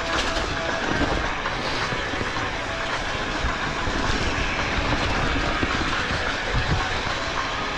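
Mountain bike descending a rough trail: a continuous rattle and rumble of the bike frame and tyres jolting over the ground, with dense irregular knocks throughout.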